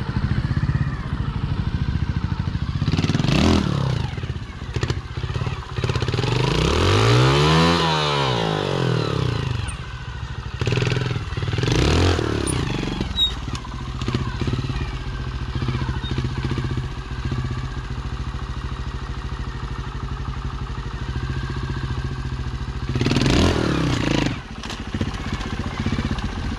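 Trials motorcycle engine ticking over between sharp throttle blips as it is ridden up and over rocks. The longest rev rises and falls about eight seconds in, with shorter blips around three, twelve and twenty-three seconds in.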